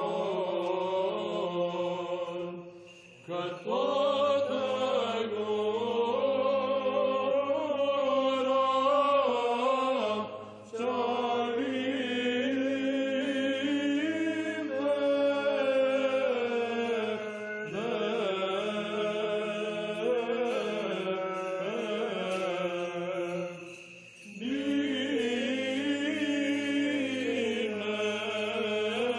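Byzantine psaltic chant in the fourth tone: voices sing a flowing, ornamented melody over a steady low held drone (ison). There are short breaks between phrases about three, ten and twenty-four seconds in.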